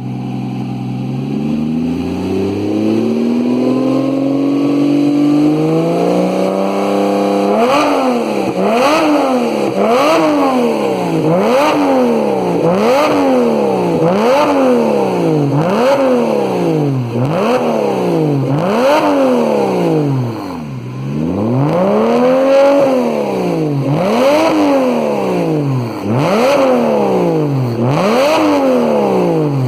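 Porsche Boxster S engine through a sport exhaust, very loud. It climbs slowly in pitch over the first several seconds, then is blipped over and over, each rev rising and falling in about a second.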